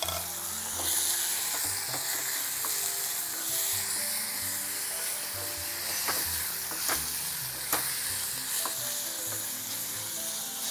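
Raw chicken pieces sizzling in hot coconut oil in a stainless steel saucepan, stirred with a wooden spoon that knocks against the pan a few times around six to nine seconds in. Light background music plays underneath.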